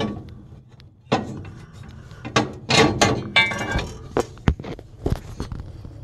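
Irregular sharp knocks, clanks and a brief rattle of metal parts being handled by hand at an old gas boiler's burner compartment, the loudest strikes about a second in and around three seconds in.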